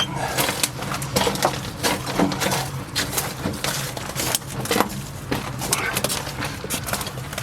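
Footsteps crunching and scuffing, with irregular crunches two or three times a second.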